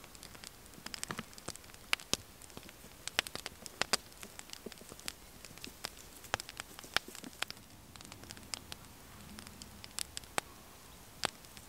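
Wood fire crackling in a small twig-burning camp stove: irregular sharp pops and snaps, scattered unevenly.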